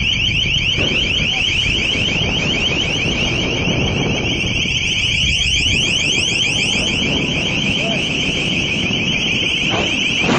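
Long-range acoustic device (LRAD) on the ship blaring a high-pitched pulsing warning tone, several pulses a second, over a steady low rumble.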